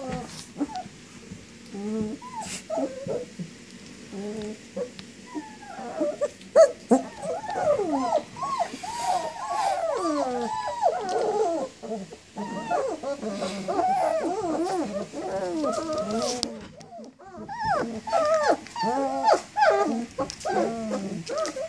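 A litter of about three-week-old German Shepherd puppies whining and whimpering, several at once in overlapping rising-and-falling cries, with a brief pause near the end. The puppies are crying for their mother.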